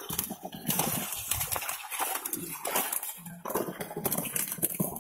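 Live fish flapping in a crowded, wet net: many irregular wet slaps and splashes as they thrash against each other and the mesh.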